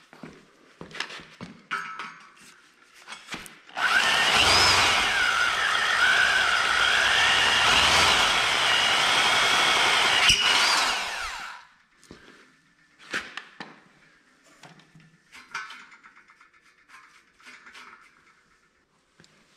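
Corded electric drill boring a 17/32 inch hole into the metal square-tube post of a bender stand: it runs under load for about eight seconds with a wavering whine, then winds down. Faint handling clicks and knocks come before and after.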